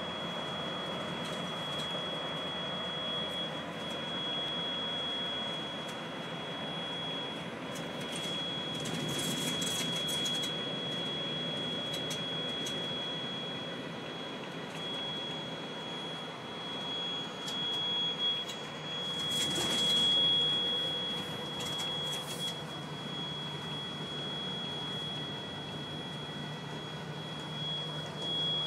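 Motorhome alarm sounding a steady high-pitched tone over engine and road noise inside the moving motorhome's cab, with a clatter about twenty seconds in.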